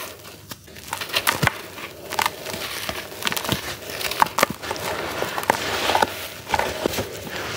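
Hands crumbling and squeezing gritty charcoal cakes under water: an irregular run of sharp crackles and crunches over a grainy rustle, which swells a little past halfway.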